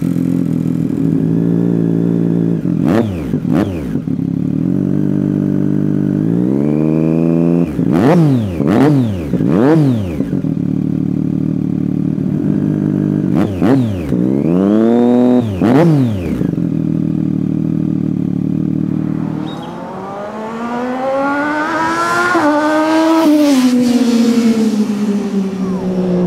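Triumph Daytona 675R's 675cc three-cylinder engine through an unbaffled Competition Werkes full exhaust, idling in neutral and blipped sharply several times, with one longer held rev. Then, from about two-thirds through, the bike is heard on the road accelerating, its pitch climbing for a few seconds and then falling away.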